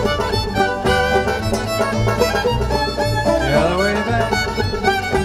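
Contra dance string band playing a dance tune, with the fiddle carrying the melody over a steady pulse of low bass notes.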